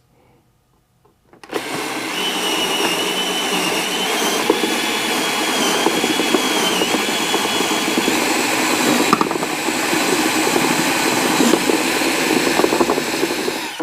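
Power drill with a 3/4-inch bit running steadily, boring a hole through a painted motorcycle trunk panel. It starts about a second and a half in, with a high whine over the first half, and stops just before the end.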